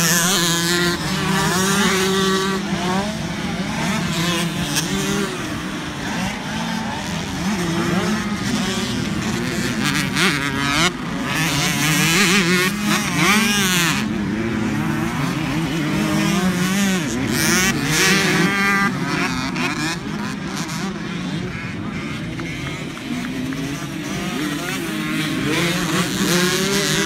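Several motocross dirt bike engines revving up and down as they ride the track, their pitch rising and falling again and again with the throttle, loudest as bikes pass closer between roughly a third and two-thirds of the way through.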